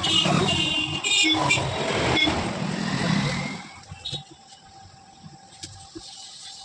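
A road vehicle passing close by, loud for about three and a half seconds and then fading away.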